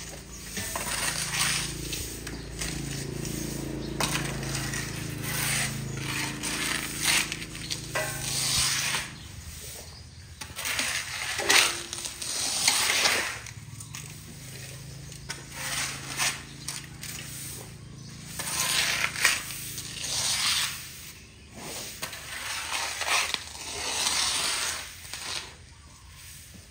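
Stiff broom sweeping a wet concrete floor in irregular scratchy strokes.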